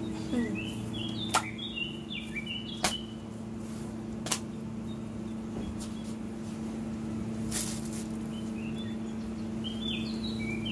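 A steady low hum with a few sharp taps in the first half, as hands handle thin paratha dough on the counter. A bird chirps a quick run of notes near the start and again near the end.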